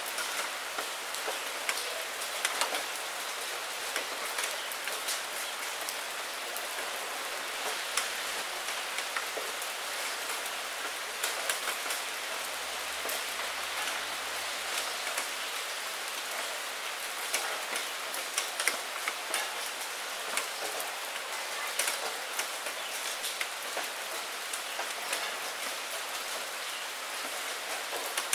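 Steady rain: an even hiss with many separate drop hits scattered through it.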